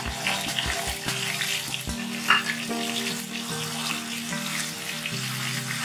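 Wet blended tomato-and-ginger masala paste sizzling as it fries in hot mustard oil, stirred with a spatula, with a short louder sound about two seconds in.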